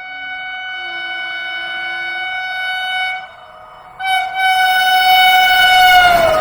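Shrill train horn sounding two long blasts: the first lasts about three seconds, then after a short gap a louder second blast drops in pitch near its end as the train passes. The rushing noise of the passing train comes in just as it stops.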